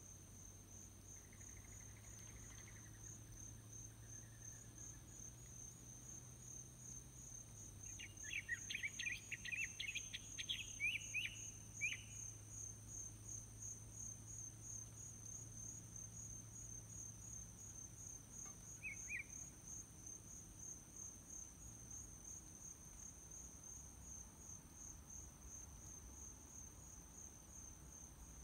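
Crickets chirring in a steady, fast-pulsing high chorus. A bird sings a quick run of notes from about 8 to 12 seconds in and gives one short chirp later, over a faint low hum.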